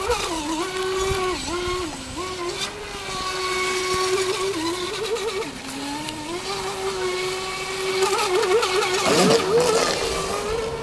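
Electric RC speedboat's brushless motor whining at speed, with a steady high pitch that drops briefly several times as the throttle is eased and then climbs back. Near the end the pitch wavers quickly up and down as the boat turns, over the hiss of spray.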